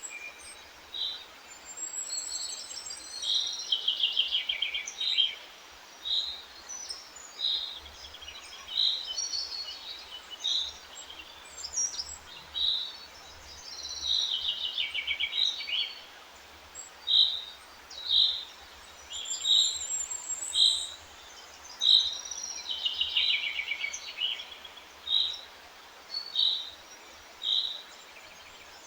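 Songbirds singing: short high chirps repeated about once a second, broken by a few fast trills that fall in pitch, over a faint steady hiss.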